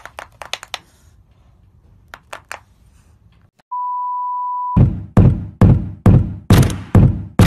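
A steady one-pitch test-tone beep for about a second, then a heavy thumping beat of about two thumps a second as a music track begins.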